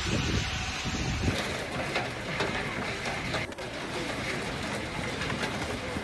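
Snowstorm wind buffeting the microphone with uneven gusts, which stop about a second in. After that comes a steady outdoor hiss with faint scattered clicks.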